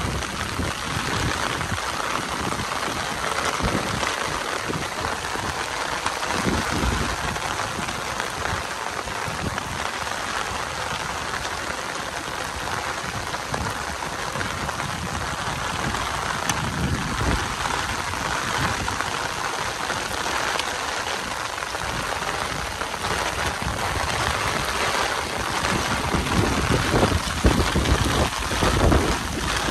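Heavy rain falling steadily, a dense even hiss, with a few louder low rumbles near the end.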